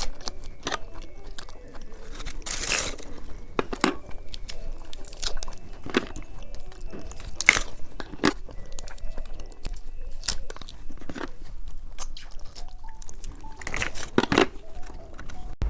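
Close-miked chewing and crunching of candy, with sharp, irregular crunches every fraction of a second and a few louder bites.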